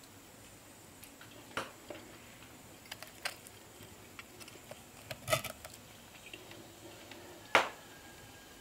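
A metal fork clinking against a cast-iron pot while it tears apart the meat of a roast chicken: scattered taps and clicks, a small cluster a little past the middle and the loudest single clink near the end.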